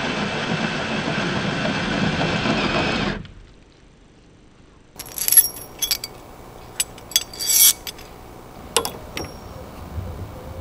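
Cordless drill running steadily as it bores a long bit through a thick timber beam, stopping abruptly about three seconds in. After a short pause, a scatter of sharp metallic clinks and clicks from a steel socket wrench and its handle being put together and handled.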